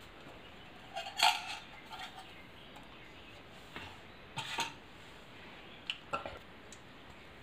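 A few light metallic clinks and knocks of steel cookware and utensils, the loudest about a second in with a short ring, a couple more around four and a half seconds and six seconds.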